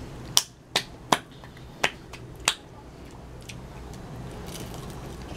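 Finger snaps: five sharp snaps at an uneven pace over the first two and a half seconds.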